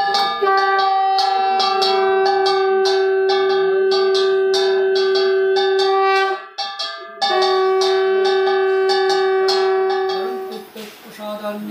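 Small brass puja hand bell rung rapidly, about five strokes a second, over a long steady note typical of a blown conch shell. The note breaks briefly just past the middle, then resumes. Both stop about a second before the end.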